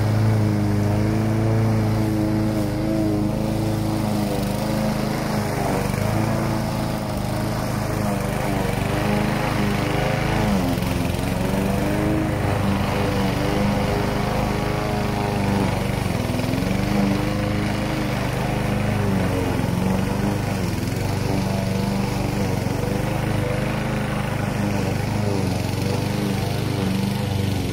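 Walk-behind rotary lawn mower engine running steadily while the mower is pushed across the grass, its pitch wavering slightly now and then.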